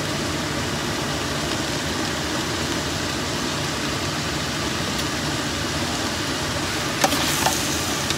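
Steady hiss of beef, onion and garlic sautéing in a stainless steel stockpot over high heat. Near the end the metal spoon clicks against the pot twice while stirring.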